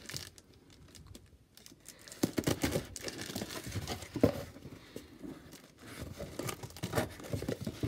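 Pocket-knife blade cutting through plastic packing tape on a cardboard parcel: irregular tearing and crinkling of the tape and scraping of cardboard. It starts after a quiet second or two, with one sharp louder crack about four seconds in.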